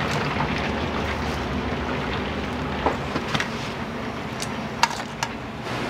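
Restaurant kitchen noise: a steady hiss over a low hum, with a few sharp clicks and taps from about three to five seconds in.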